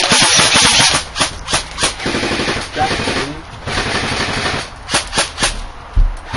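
Airsoft guns firing, with stretches of rapid automatic fire about a second long broken by a few sharp single shots.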